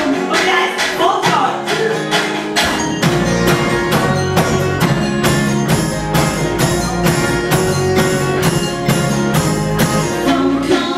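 A band playing live: a steady beat of percussion strikes, about three a second, over strummed chords, with a deep bass coming in about three seconds in.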